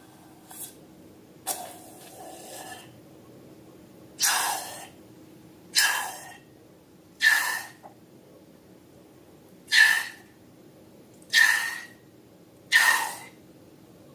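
Slime and balloons being squeezed and worked by hand: a series of about eight short airy squelches, one every second and a half or so, several ending in a brief high squeak.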